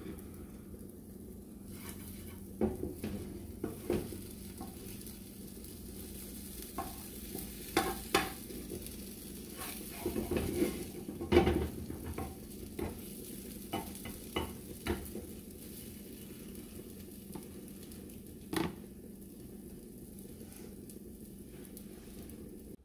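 A spatula scraping and tapping in a non-stick frying pan as small egg-and-cheese fritters are turned and broken up, in scattered clicks and scrapes that are busiest about halfway through. Under it, a steady low sizzle of food cooking.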